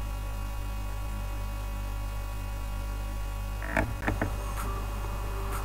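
Steady electrical mains hum with a buzz of several fixed tones on the recording's audio, and a few brief sharp sounds about four seconds in.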